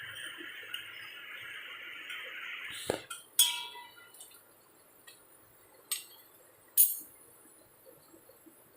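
Kitchen utensils clinking: a steady hiss stops with a click about three seconds in, then a few sharp metal clinks follow, the first of them ringing briefly.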